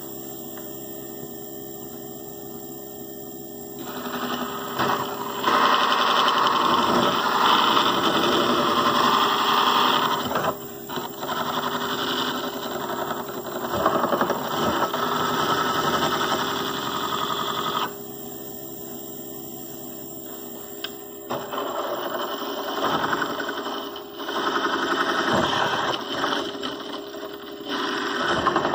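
Car alternator run as a motor from an e-bike controller, spinning steadily, while the edge of a file is held against the nut on its shaft to grind it down. The file makes a loud, rough rasping scrape that starts about four seconds in, stops for a few seconds past the middle, and then starts again in uneven stretches.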